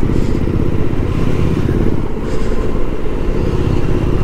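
Motorcycle engine running steadily as the bike rides along, heard from on the bike itself.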